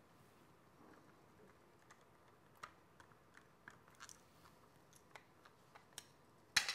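Faint scattered clicks and ticks of a screwdriver turning out the grip screw on a Crosman 1377 air pistol and the plastic grip panel being worked loose, with one louder sharp knock near the end as something is set down on the bench.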